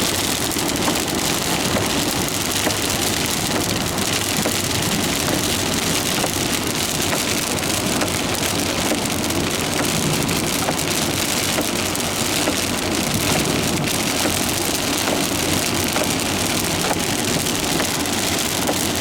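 Heavy rain falling steadily on a car's roof and windscreen, heard from inside the moving car, with tyre and road noise from the wet road underneath.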